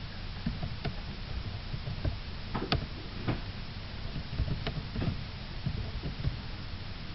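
Scattered light clicks and knocks at an uneven pace over a steady low hum, the sharpest click a little under three seconds in.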